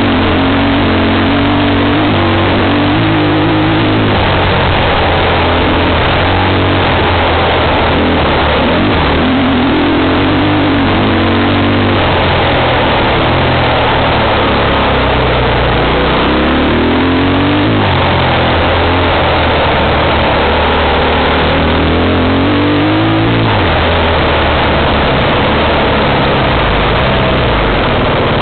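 Engine of an off-road vehicle driving over rough grass, its pitch rising and falling as the throttle is opened and eased off, under a loud steady rushing noise.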